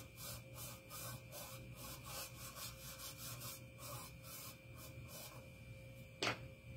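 Foam brush rubbing Mod Podge glue across the inside of a metal baking pan: faint, quick back-and-forth strokes, several a second, that stop about five seconds in. A single sharp knock follows about a second later.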